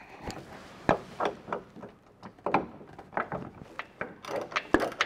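Irregular metallic clicks and knocks, several a second, as a 7/32 Allen tool turns and tightens the clamp bolt of an aluminum truck-bed ladder-rack clamp.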